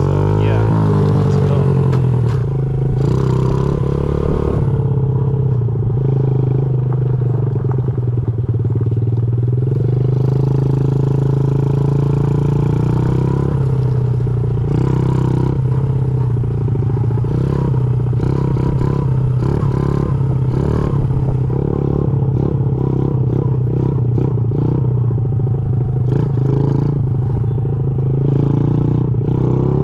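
Honda CRF50's small single-cylinder four-stroke engine running steadily under a rider, holding a nearly constant speed, with a brief change in pitch near the start.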